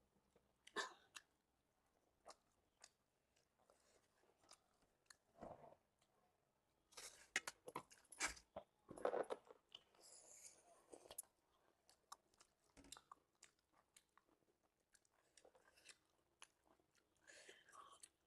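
Quiet, close-up eating sounds: wet chewing with crisp crunches and bites, a dense run of crunching about seven to nine seconds in.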